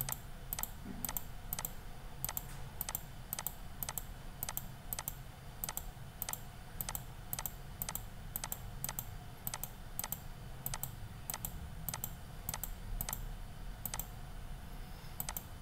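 Clicking on a computer, about two sharp clicks a second, while a video player is skipped backward. A faint low hum runs underneath.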